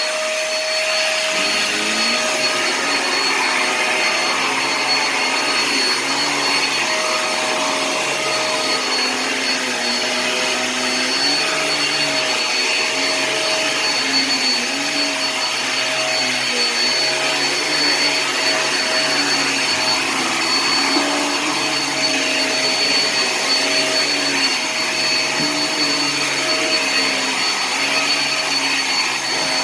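Hoover React cordless stick vacuum switched on and running steadily over carpet, a whooshing motor noise with a steady whine and a lower hum that wavers slightly as it is pushed back and forth.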